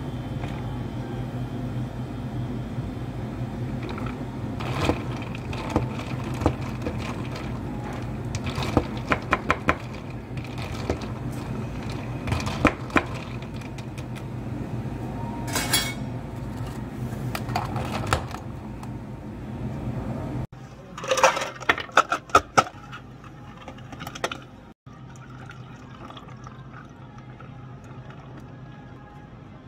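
Iced drinks being made in a plastic cup: ice clinking and knocking in short clicks as a syrup pump is pressed and an iced vanilla latte is stirred, over a steady low hum. About two-thirds through the sound changes to a quick run of ice clattering, then tea being poured over ice near the end.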